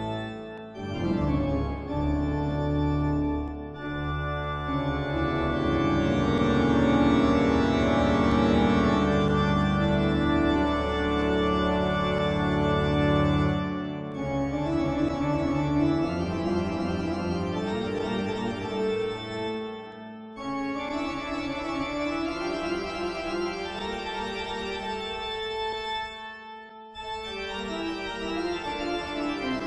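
Background music of long, held chords that change every few seconds, dipping briefly near the middle and again near the end.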